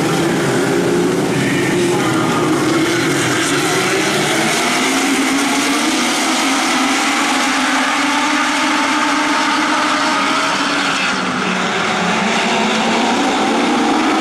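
Several Legends race cars with motorcycle-derived engines running past at once, their engine pitches rising and falling over one another as they go by.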